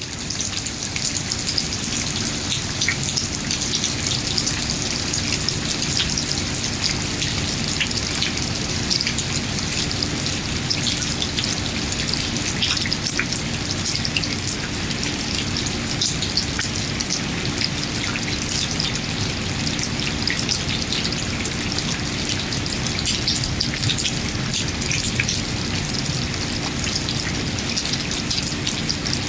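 Steady rain falling, many separate drops ticking through an even wash of noise that neither swells nor stops.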